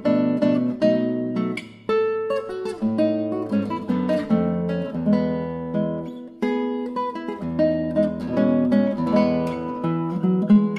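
Classical guitar music: plucked notes and chords ringing out one after another.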